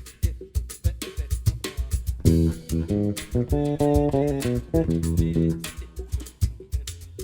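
Bass guitar playing a melodic line with held notes and chords over steady percussion strokes, in a northeastern Brazilian rhythm. The bass comes in strongest from about two seconds in and eases back near the end, leaving the percussion.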